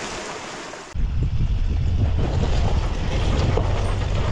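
A steady rushing hiss of wind and water. About a second in it cuts abruptly to a heavy low rumble of wind buffeting the microphone on a moving vehicle, with scattered knocks and rattles.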